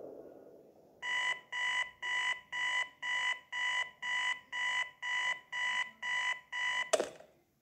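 Electronic alarm beeping: twelve even beeps at one steady pitch, about two a second, cut off by a single sharp click.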